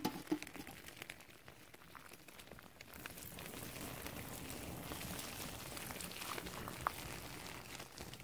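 Shark liver oil poured onto hot embers, sizzling and crackling as it catches fire and flares up. A few sharp pops near the start, then a steady hiss from about three seconds in, with scattered crackles.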